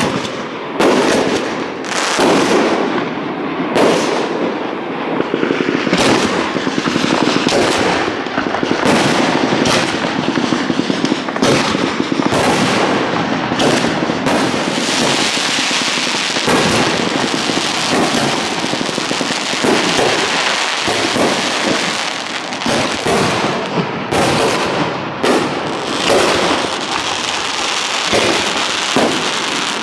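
Fireworks show: aerial shells bursting one after another with loud bangs, and a stretch of dense rapid crackle about halfway through.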